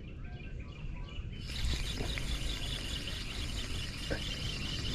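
Riverside outdoor ambience with birds chirping. About a second and a half in, a steady high hiss with shrill, chirping bands cuts in suddenly and takes over.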